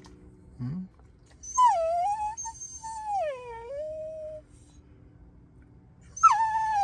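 Blue heeler (Australian cattle dog) whining and moaning for attention in long, drawn-out cries that slide down in pitch. A short low grunt comes about half a second in, a long whine follows from about a second and a half to four and a half seconds, and another falling whine starts near the end.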